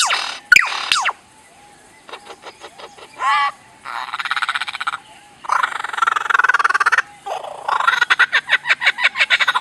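A bird giving a string of strange, electronic-sounding calls like film sound effects. It starts with quick falling zaps, then runs through clicks, a wavering warble and harsh buzzy stretches, and ends in a fast run of ticks.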